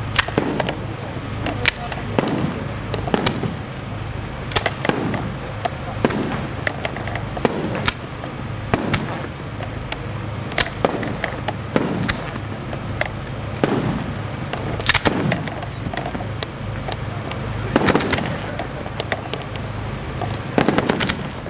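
Aerial firework shells bursting in an irregular string of sharp bangs, about one every second or two, some trailing off in a rumble.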